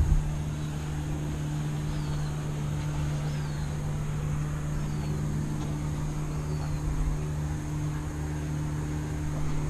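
Outboard motor of an aluminum fishing boat running steadily at idle, a constant low hum. A few short, falling bird chirps sound over it, and there is a brief low thump at the very start.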